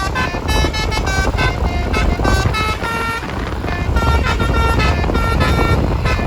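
Basuri telolet horn on a Tunggal Jaya bus, playing a rapid tune of short notes that keep changing pitch, over the low rumble of the vehicle.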